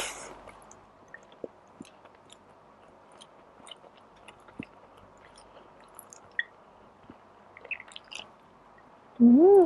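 Close-miked chewing of tuna pasta and calamares: soft, scattered wet clicks and smacks. Near the end comes a short, loud hum from the eater that rises and then falls in pitch.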